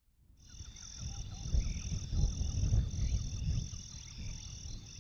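Outdoor frog-and-insect ambience fading in over the first second: frogs calling in short, repeated croaks over a steady, pulsing insect chorus, with a low rumble loudest in the middle.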